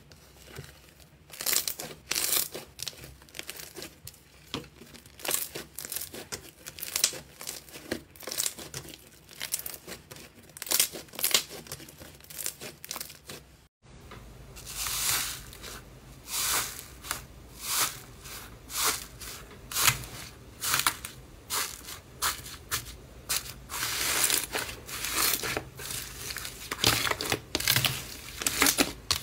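Slime being handled by hand: pressed, squeezed and poked in an irregular run of short, sharp sounds, several a second. About halfway through there is a sudden brief dropout, then the same kind of handling sounds go on over a low hum.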